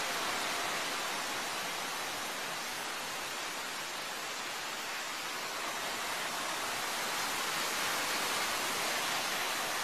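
Steady rushing roar of a radio-controlled MiG-29 model jet's engine, swelling slightly near the end as the jet comes close.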